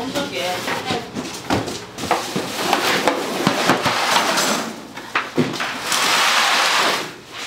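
Kitchen work sounds: scattered knocks and clatter of utensils and containers, with a loud hissing rush about six seconds in that lasts about a second.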